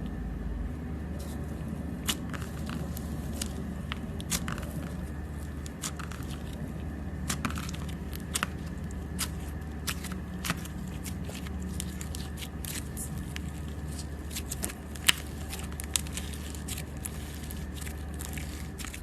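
Slime squeezed and crushed by hands, giving irregular crackling pops and snaps, one sharper pop about three-quarters of the way through, over a steady low hum.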